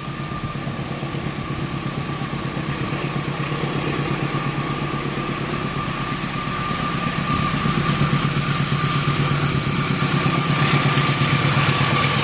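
Diesel locomotive hauling a passenger train approaching, its engine's steady, rhythmic low rumble growing louder throughout, with a rising hiss of rail and wheel noise joining about halfway through.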